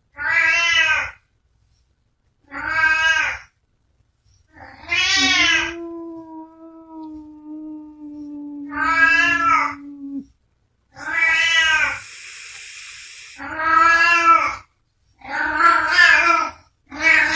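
Angry cat yowling: a run of about seven short calls, each rising and falling, a second or two apart. One call trails into a long, low held note lasting several seconds, and a hiss sounds a little past the middle.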